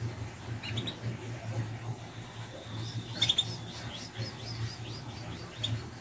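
White canary calling: a short high chirp about a second in, then near the middle a louder call, a held high whistle with a quick run of repeated up-and-down notes, and another short chirp near the end. A steady low hum lies underneath.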